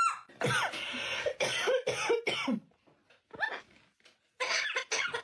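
A run of short coughs or cough-like rasping sounds in several quick bursts, a pause, then more near the end.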